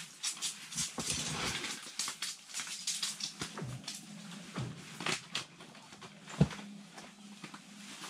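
A freshly landed trout flopping on the bare ice: a run of irregular short slaps and taps, with one sharp, loud knock late on.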